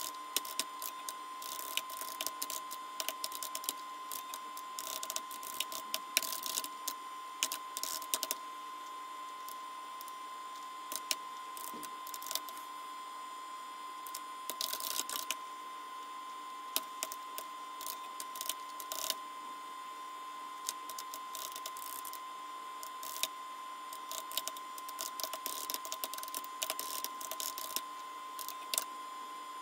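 Typing on an IBM PC/AT keyboard: irregular clusters of key clicks with pauses between them, over a steady high-pitched hum.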